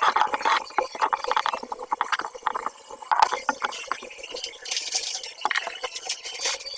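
Quick irregular clicks, scrapes and rustles of hand work on plumbing fittings.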